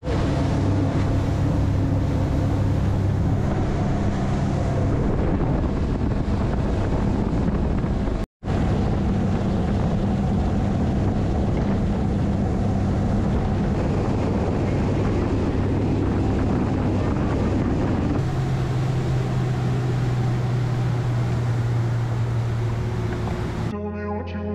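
Mercury Pro XS outboard driving a bay boat under way, a steady engine drone with wind buffeting the microphone. It drops out for a moment about eight seconds in, and the drone settles to a lower, steadier note about eighteen seconds in. Music starts just at the end.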